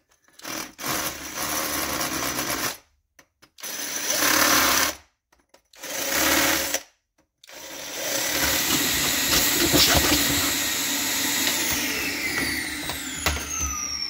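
Power drill with a masonry bit boring into a concrete floor to enlarge bolt holes. It runs in three short bursts, then a longer run of about six seconds whose whine falls away near the end as the motor spins down.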